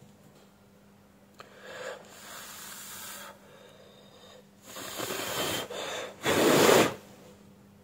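Person blowing puffs of breath onto freshly applied super glue on a flashlight battery pack to dry it: four gusts of hiss, the last and loudest one near the end.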